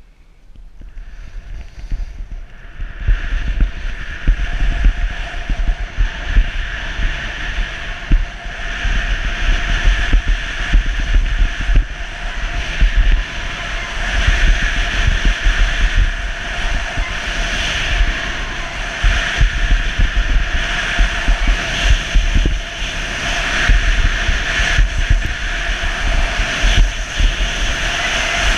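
Wind buffeting the skier's own camera microphone, over the steady hiss and scrape of skis on firm snow. It builds over the first few seconds as the skier picks up speed, then holds with a gusting low rumble.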